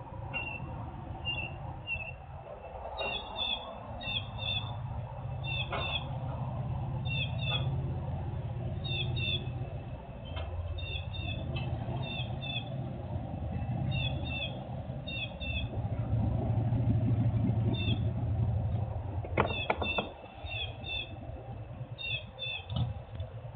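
Low rumble of heavy industrial machinery, swelling and easing and loudest past the middle, with a sharp clank about three-quarters of the way through. Short high chirps repeat in pairs over it throughout.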